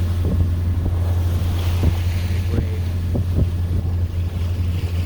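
A sailboat's engine runs with a steady low drone while under way, with wind buffeting the microphone in irregular low thumps and sea water washing past the hull.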